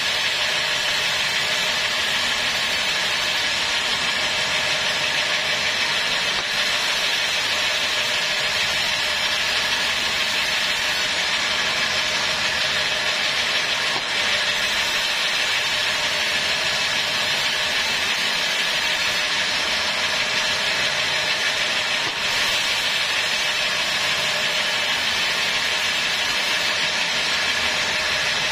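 Large vertical sawmill band saw running steadily while its blade cuts lengthwise through a timber log.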